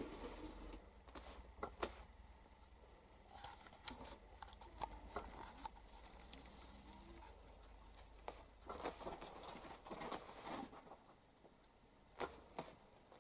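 Faint, scattered rustling and light clicks from cats moving about among cloth and sacks, mixed with handling noise from a handheld camera.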